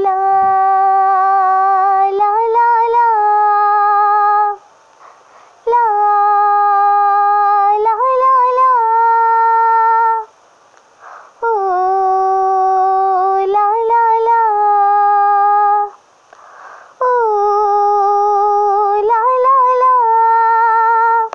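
A girl's voice singing a wordless melody in four long held phrases, each lasting about four seconds with a short break between, the pitch wavering near the end of each phrase.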